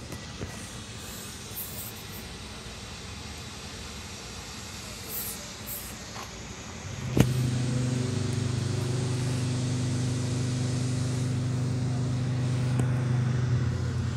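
Faint steady background, then a sharp click about seven seconds in, followed by a loud, steady, low mechanical hum that stops abruptly near the end.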